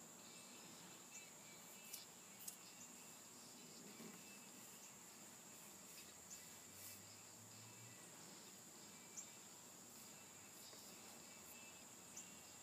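Near silence: quiet room tone with a faint steady high-pitched tone and a few faint soft clicks.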